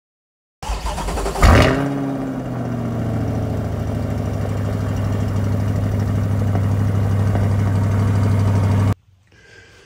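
Race truck engine starting: it catches with a sharp blip of revs about a second in that settles back, then runs at a steady, loud idle until it cuts off suddenly near the end.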